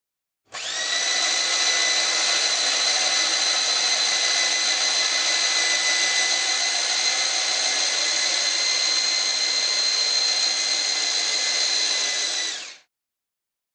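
Metabo BE 75-16 non-impact drill boring a 50 mm hole into a pine beam with a wood bit, running steadily under load with a high motor whine. It starts abruptly about half a second in and winds down quickly after about twelve seconds.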